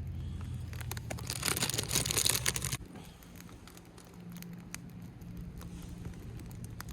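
Plastic food packet rustling and crinkling for about the first three seconds, then quieter handling with a few light clicks.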